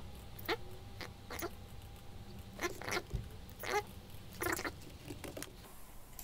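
Short pitched chirps from a small animal, about six of them spread out, over a low steady hum.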